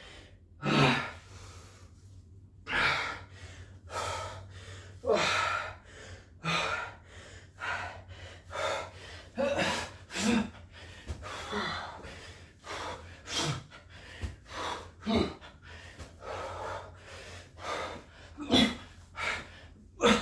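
A man breathing hard from exertion, loud gasping breaths about once a second at an uneven pace, the sound of someone near the end of a long burpee set.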